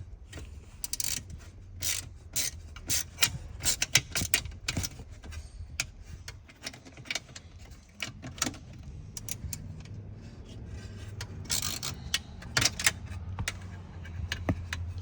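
Ratchet wrench with a 5.5 mm socket clicking in short bursts as it works the small bolts holding a seat counterweight, over a steady low hum.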